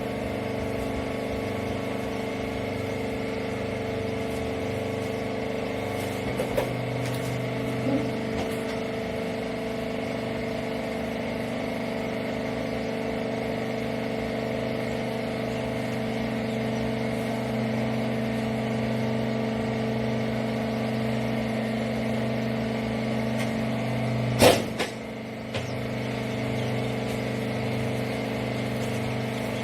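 Hydraulic rag baler's motor and pump running with a steady hum, with a few light clicks and one sharp knock near the end.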